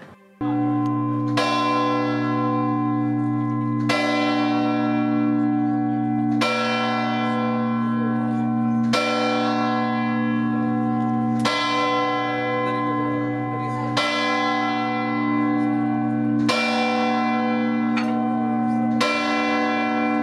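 A large bronze church bell in the Leaning Tower of Pisa tolling steadily, struck about every two and a half seconds. Each stroke rings on with a long hum into the next.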